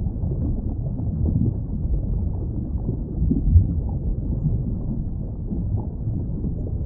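Low, steady rumbling underwater water noise, with one brief louder thump about three and a half seconds in.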